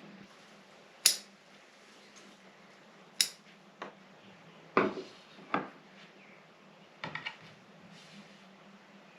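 Bonsai pruning shears snipping shoots: several short, sharp snips at irregular intervals, with a quick cluster of three about seven seconds in.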